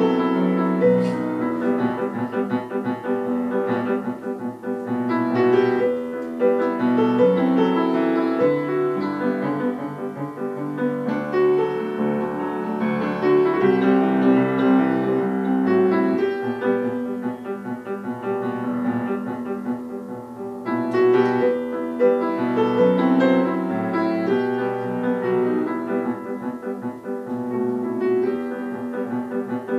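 Solo grand piano played, a continuous flow of notes in both hands.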